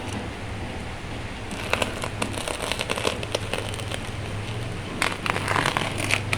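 Cardboard box and plastic packing being opened by hand: bursts of crackling and rustling, starting about a second and a half in and again about five seconds in, over a steady low hum.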